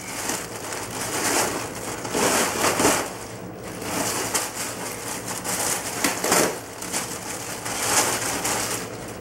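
Plastic mailer bag crinkling and rustling in repeated bursts as it is handled and opened and a hoodie is pulled out of it.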